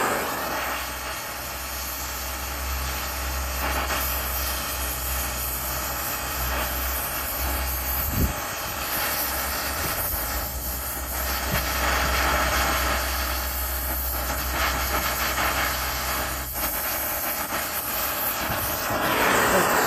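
Brazing torch flame burning steadily, a continuous hiss with a low rumble, heating the compressor's copper discharge-line joint to melt the braze and free the line.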